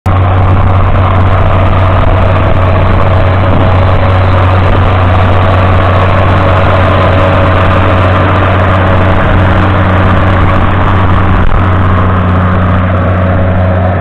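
John Deere 7710's 8.1-litre six-cylinder diesel engine running loud and steady at an unchanging pitch as the tractor pulls a reversible plough deep through the soil.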